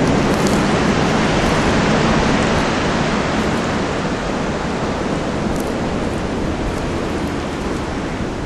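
Blizzard wind blowing steadily, with wind buffeting the microphone: a dense, even rush of noise with a heavy low rumble, easing a little after about three seconds.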